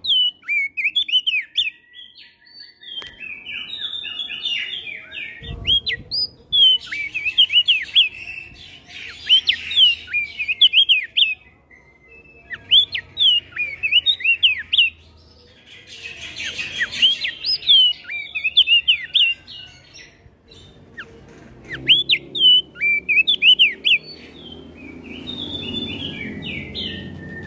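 Crested dark-eye (opior jambul) singing in several bouts of fast, high chirping notes with short pauses between them, with other birds answering.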